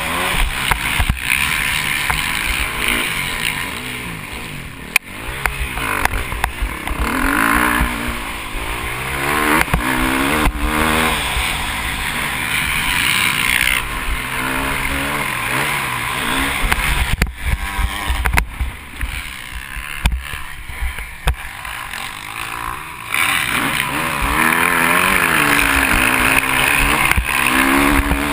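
KTM SX350F's four-stroke single-cylinder motocross engine revving up and down over and over as the rider accelerates, shifts and backs off round the track, with wind buffeting the on-bike camera's microphone. The engine is quieter for a few seconds past the middle, then pulls hard again near the end.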